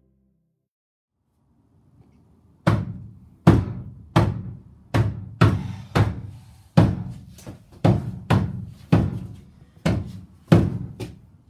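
A hand banging on the rear doors of a Ford panel van, heard from inside the van: after a couple of seconds of near silence, a run of heavy thuds, about one and a half to two a second, each with a short ringing tail.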